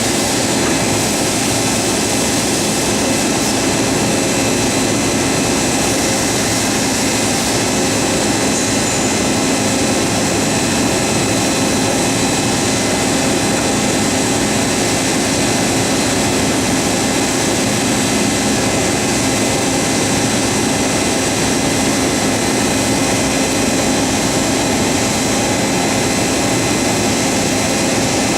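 LeBlond Makino MC1813 CNC horizontal machining center running under power: a loud, steady mechanical whir with several steady tones through it and no change over the whole stretch.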